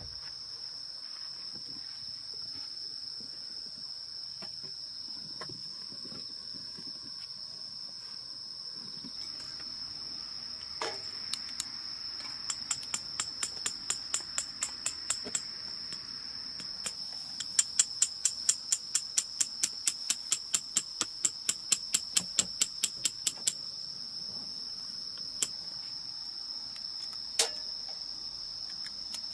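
Insects, crickets, trilling in one steady high note throughout. Partway through comes a long run of sharp, evenly spaced knocks, about three a second, like hammer blows, which stops abruptly; two single knocks follow near the end.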